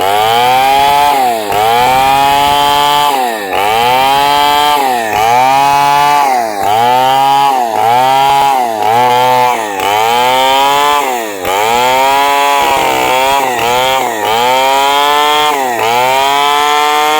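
Chainsaw ripping lengthwise through hardwood. The engine pitch sags under load and climbs back again and again, roughly once a second.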